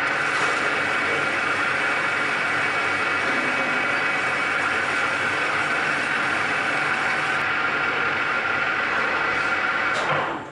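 Engine lathe running steadily with an electric motor bearing housing spinning in its chuck, a steady whine over the machine noise, while a light first skim cut is taken off the bearing surface. It shuts off abruptly near the end.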